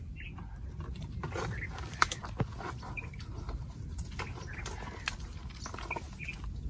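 Scattered snaps, clicks and squelches of a person working in a mangrove thicket, handling branches and shifting in deep mud.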